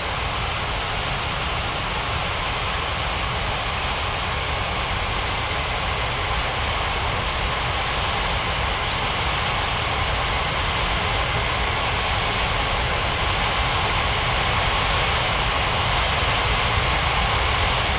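Airbus A330's jet engines running: a steady rushing drone with a deep rumble and a faint whine, growing slowly louder.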